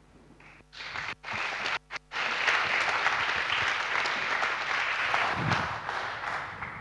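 Audience applauding, starting about a second in, with two brief dropouts in the sound early on, then steady and fading near the end.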